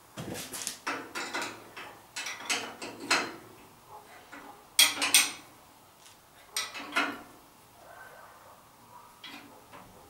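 Metal tool work on a lathe's motor and belt drive: a wrench clicking and clanking on the motor's fastenings in several short bursts of metallic clatter, the loudest about halfway through.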